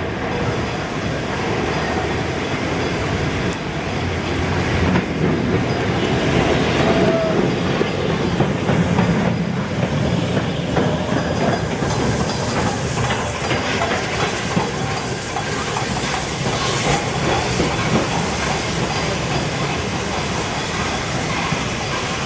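Train rolling past, its wheels clicking over the rail joints above a steady rumble that grows louder in the middle as the carriages go by. It is the 'Border Raider' railtour, hauled by the steam locomotive 60163 Tornado.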